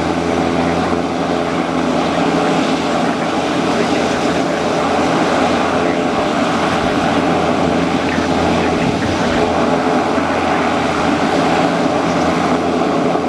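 Pilatus PC-12's Pratt & Whitney PT6A turboprop running steadily with the propeller turning: an even engine and propeller drone that holds the same pitch throughout.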